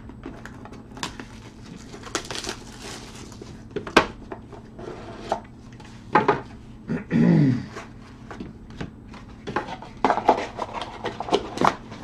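A small cardboard trading-card box being opened and handled on a table: rustling, the lid pulled off, and a run of light taps and clicks. About seven seconds in there is a short, low sound that falls in pitch, the loudest in the stretch.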